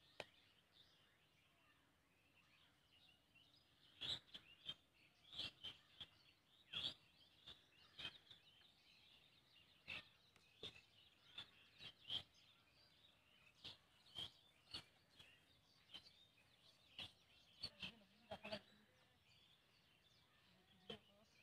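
Quiet outdoor ambience with faint bird chirping and a scattered run of short, sharp clicks through the middle, plus a brief low animal-like call near the end.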